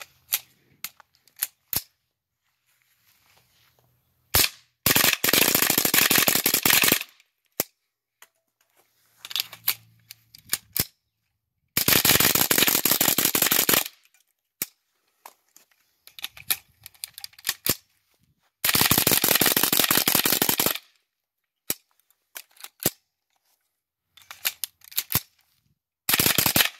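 Suppressed .22 LR AR pistol, with a Dead Air Mask suppressor and a Franklin Armory BFS3 binary trigger, firing rapid strings of shots, with a round on each pull and on each release of the trigger. There are three strings of about two seconds each and a short one near the end, with scattered single shots between them.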